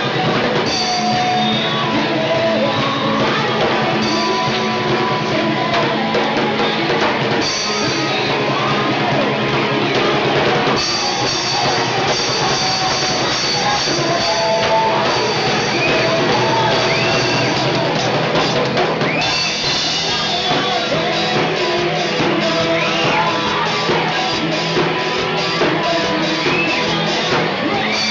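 Live band playing an upbeat rock-style song with a drum kit, guitar and singing voices.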